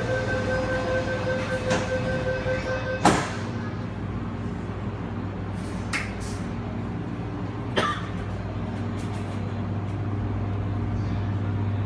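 Interior of a Metro Cammell electric multiple-unit train car: a steady low hum throughout. A steady tone cuts off at a sharp bang about three seconds in, and two lighter clanks follow a couple of seconds apart.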